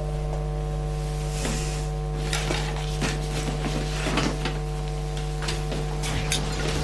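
A few light knocks and clatters of things being handled in a kitchen, scattered over a steady electrical hum.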